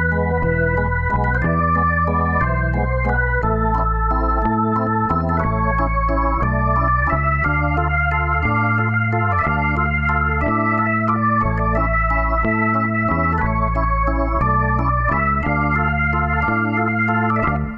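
Background music played on a keyboard: sustained chords over low bass notes that change every second or so.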